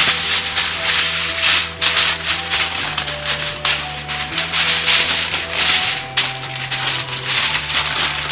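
A sheet of aluminium foil crinkling and crackling as it is unfolded and smoothed flat by hand, in rapid irregular rustles, over soft background music.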